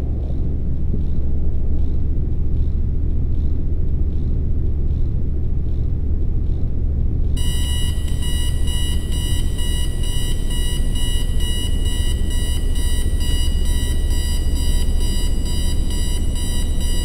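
Steady deep rumbling drone. About seven seconds in, a cluster of high, steady electronic tones suddenly joins it, fluttering rapidly, and holds to the end.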